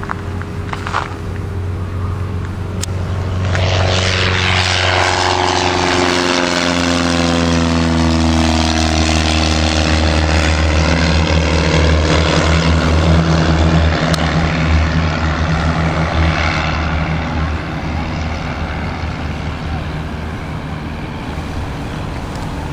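Propeller aircraft engine passing low overhead: the drone swells a few seconds in, its pitch falls as the plane goes by, and it then carries on as a steady drone that slowly fades as the plane moves away.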